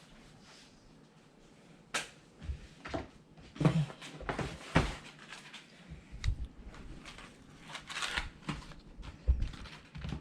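Irregular knocks, clicks and clunks of things being handled, with the loudest knocks about two seconds in and in a cluster around four to five seconds.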